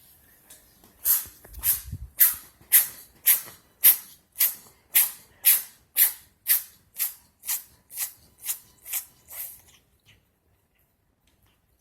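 A kitten in a sneezing fit: about seventeen sharp, hissy sneezes in quick succession, roughly two a second, growing a little weaker toward the end. The sneezing comes from a kitten recovering from a lung infection.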